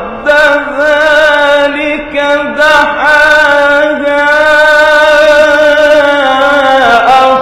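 A man reciting the Quran in a melodic, ornamented style into a microphone. A few short phrases lead into one long held line from about three seconds in, which slides down in pitch near the end.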